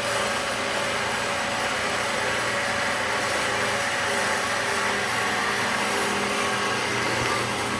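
Several horizontal metal-cutting bandsaws running at once, a steady machine noise with a layered hum and a high whine. It starts abruptly just before this stretch and holds even throughout.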